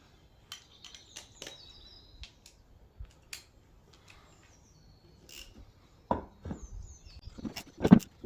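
Metal tools clinking and knocking on axle hub parts, a few separate clanks, the loudest near the end. Birds chirp in the background.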